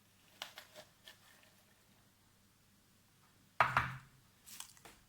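Kitchen utensils being handled: a few faint clicks, a lull, then a single sharp knock about three and a half seconds in, followed by a few light clicks.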